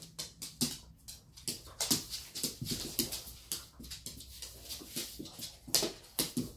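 Crinkling plastic and small clicks from handling a new wristwatch, its protective plastic film being peeled off and its strap being fastened on the wrist; irregular crackles throughout.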